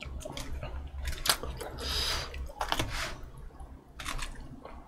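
Eating sounds close to the microphone: chewing, and several sharp clicks of metal chopsticks against a plastic takeout tray while picking up shredded cabbage salad.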